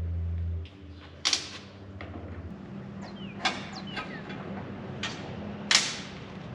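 A steady low engine hum cuts off under a second in. Four sharp knocks follow, spaced one to two seconds apart, the loudest near the end, with birds chirping in the background.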